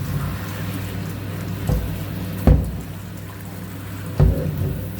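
Shower water running and splashing as a small dog is rinsed, with a few dull knocks.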